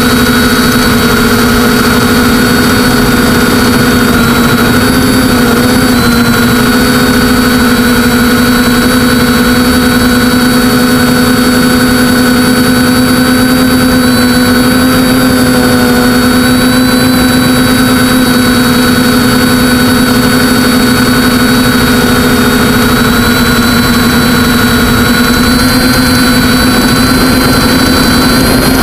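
A TBS Discovery quadcopter's NTM brushless motors and propellers running steadily in flight, heard from on board. The sound is a loud, even whine of several held tones that shift slightly in pitch a few seconds in, over a low rushing noise.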